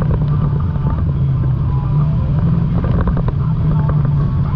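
Side-by-side UTV engine running steadily while driving along a dirt trail, a constant low drone.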